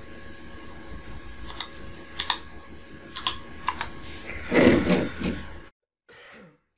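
Separate clicks of keys being pressed on a grandMA1 lighting console, four or so over a few seconds, with a faint steady electrical hum beneath. Near the end comes a louder rustling burst, then the sound cuts out for about a second.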